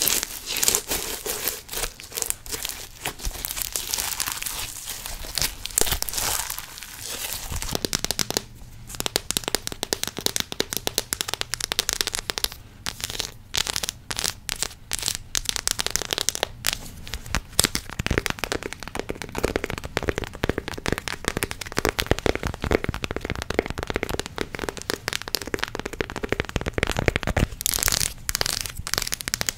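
Slime squished close to the microphone, with dense wet crackling and clicking. About eight seconds in there is a short break, then chocolate is handled up close: rapid crinkling and crackling.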